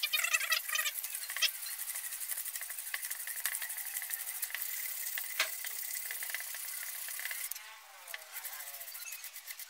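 Sandpaper rubbing on a bamboo cup in rapid back-and-forth strokes, with a few sharp clicks. The playback is sped up. The scratching eases near the end.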